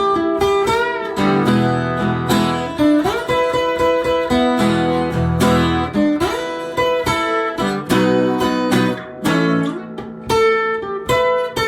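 Instrumental blues music led by guitar, with strummed chords and notes bent up in pitch.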